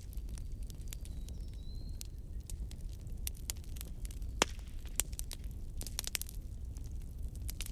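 Wood fire in a fireplace crackling: irregular sharp pops and snaps over a low steady rumble of the flames, with one louder pop about four and a half seconds in. A brief thin whistle comes about a second and a half in.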